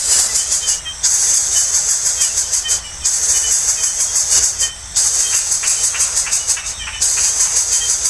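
Insects buzzing: a loud, high-pitched pulsing drone that breaks off briefly about every two seconds.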